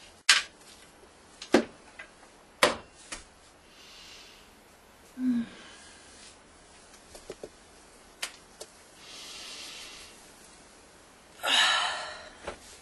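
Sharp clicks and taps from small objects being handled, three loud ones in the first few seconds and fainter ones later, between soft breathy sounds; near the end a louder, longer breathy rush.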